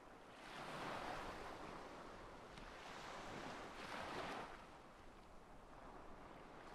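Faint ocean surf: waves breaking in slow swells of hiss, loudest about a second in and again around four seconds in.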